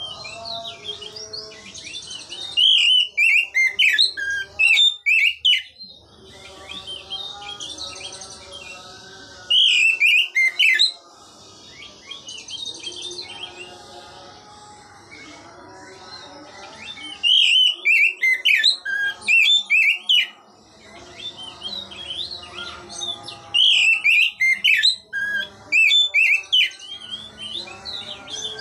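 Oriental magpie-robin singing: loud, clear whistled phrases in several bursts of a few seconds each, with quieter, lower sounds in the pauses between them.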